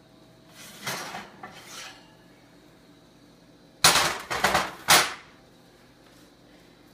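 Metal baking sheet scraping out across the oven rack, then clattering down onto the metal grates of a gas stovetop: a quick run of loud metallic clanks about four seconds in.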